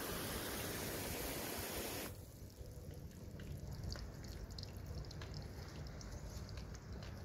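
Steady hiss of water spraying onto textured facade render, cutting off abruptly about two seconds in, followed by faint dripping with scattered light ticks.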